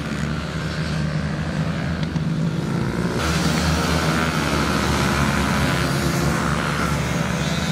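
Racing motorcycle engines running at speed on the circuit. The sound changes abruptly about three seconds in to another engine note.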